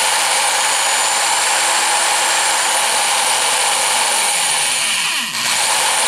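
Old Craftsman variable-speed electric drill running at speed, a bit loud, spinning a brass model flyball governor through a small fuel-line coupling. The motor sound dips briefly about five seconds in, then picks up again.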